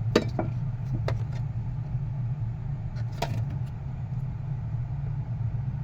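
A few sharp clicks and knocks of a power cord's plug being pushed into a power supply, three close together near the start and one more about three seconds in, over a steady low hum.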